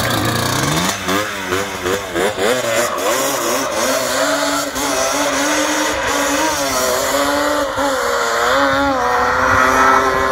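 Quad bike (ATV) engine revving hard and repeatedly during stunt riding, its pitch climbing and dropping about once a second.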